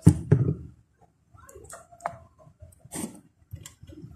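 Sticky glue-and-clay slime being mixed by hand, giving scattered soft clicks and squelches, with two louder thuds right at the start.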